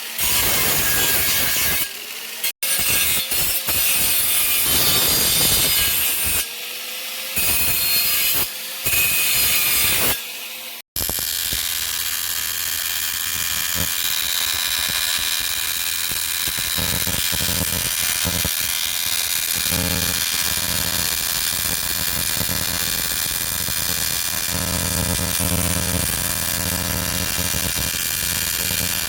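A power tool running on a workpiece with a rasping, grinding noise. For the first ten seconds or so it comes in short stop-start passes, then it runs steadily.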